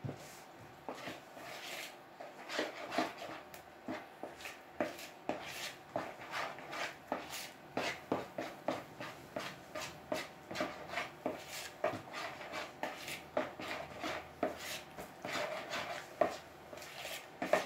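Batter of rice flour, wheat flour, spices and liquid margarine being stirred in a bowl. Repeated scraping and knocking strokes of the utensil against the bowl come roughly twice a second, unevenly.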